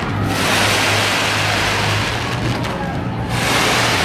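Fireworks going off in a close, continuous barrage, a dense crackling noise with a low rumble underneath.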